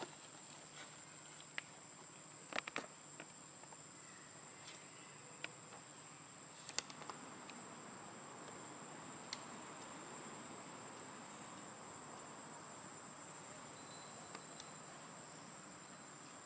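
Steady, high-pitched insect drone, one unbroken tone, with a few scattered sharp clicks.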